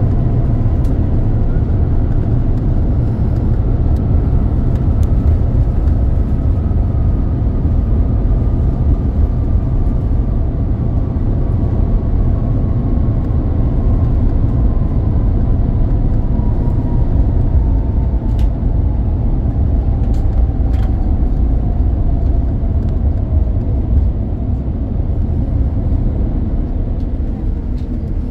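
Cabin noise aboard an Airbus A350-900: a loud, steady low rumble with a thin whine that slowly falls in pitch.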